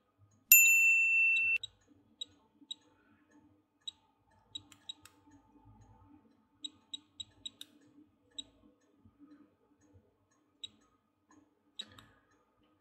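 NV17 tweezer multimeter's buzzer giving one high, steady beep about a second long, half a second in, followed by a string of faint clicks from its buttons as its menus are stepped through.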